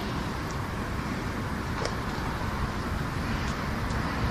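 Steady outdoor background hum of distant road traffic, with a few faint clicks.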